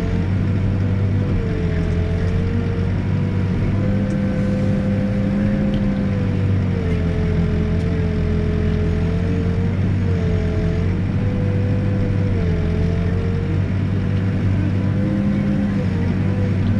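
Backhoe's diesel engine running steadily under work, with a whine that dips and rises in pitch every second or two as the load changes.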